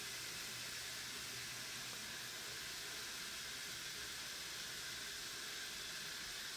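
Faint, steady fizzing hiss from a tray of foaming vinegar reaction mixture.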